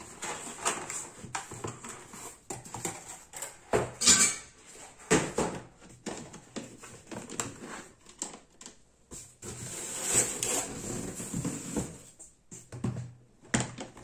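Cardboard packaging being handled: irregular scraping and rustling with sharper knocks about four and five seconds in, as a robot vacuum is lifted out of its box and set on a table.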